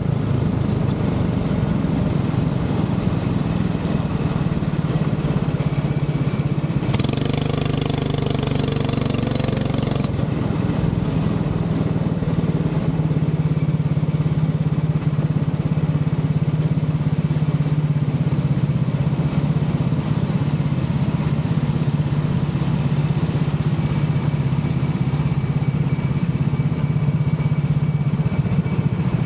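Go-kart engine running steadily, with a rising engine note and added noise for a few seconds around seven to ten seconds in.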